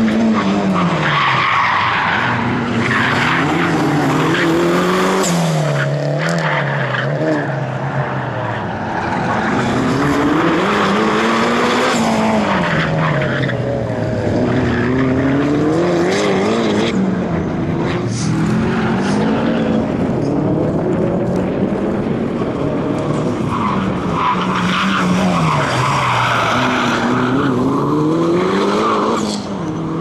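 Mitsubishi Lancer Evo V's turbocharged four-cylinder engine driven hard, revving up and dropping back again and again every few seconds as the car works through tight turns, with tyres squealing and skidding in the corners near the start and again near the end.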